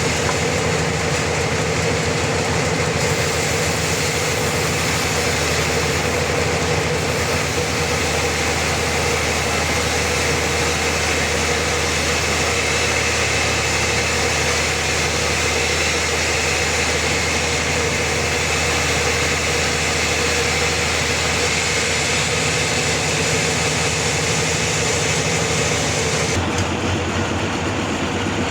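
Homemade sawmill running steadily, its saw cutting through a large trembesi (rain tree) log with a constant low engine hum under a dense, hissing cutting noise. Near the end the cutting noise drops away and the machine runs on with less load.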